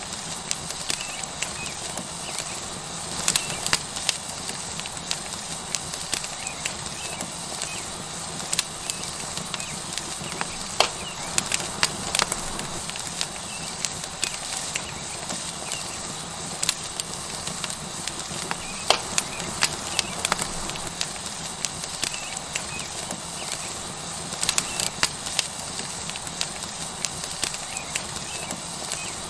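Tomahawk steak sizzling on a hot rock over a wood fire: a steady hiss with irregular sharp crackles and pops from the burning wood.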